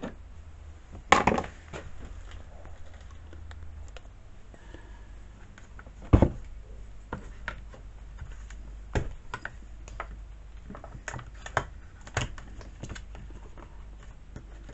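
Scattered clicks and knocks of chainsaw parts being handled during disassembly, with louder knocks about a second in, around six seconds in and around nine seconds in, and a run of lighter clicks near the end.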